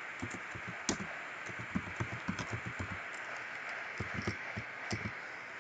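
Typing on a computer keyboard: light, irregular key clicks over a faint steady hiss.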